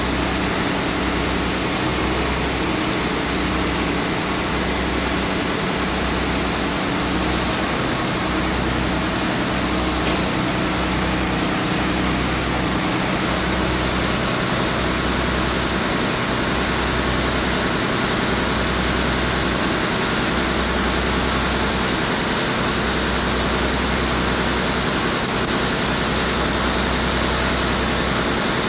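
Wirtgen 1000C cold milling machine's diesel engine running steadily, with an even hiss over a low rumble that comes and goes every second or two.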